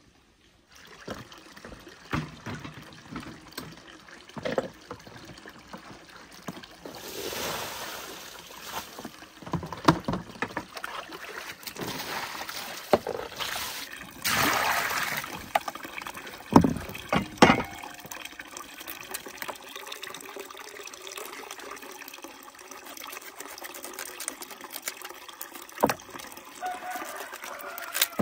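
Water trickling and sloshing, with two longer swells of pouring and scattered knocks and clatter from things being handled.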